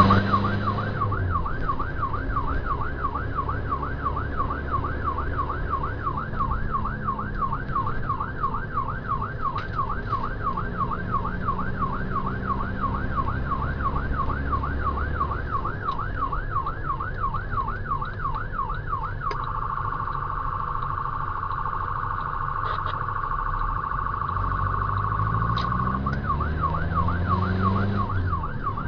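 Rescue vehicle's electronic siren cycling rapidly up and down, about three times a second. About two-thirds of the way through it switches to a steady held tone for several seconds, then goes back to the fast cycling. Under it runs the vehicle's engine, rising in pitch near the end as it speeds up.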